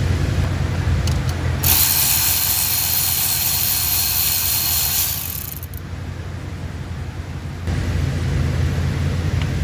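A loud, even hiss of compressed air lasting about four seconds, typical of a shop blow gun, over a steady low mechanical hum that drops out for a couple of seconds after the hiss and then comes back.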